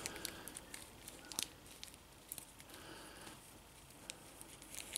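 Faint, scattered light clicks and rustles of a small plastic action figure being turned and handled in the fingers.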